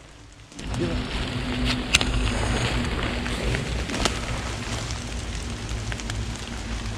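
Rustling and handling noise from a handheld camera carried through wet forest undergrowth, starting about half a second in as a steady rumbling noise with a few sharp clicks.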